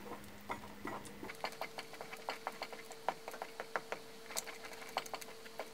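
Thick apple puree with agar-agar simmering in an enamel pot while a wooden spatula stirs it: faint, irregular small pops and clicks.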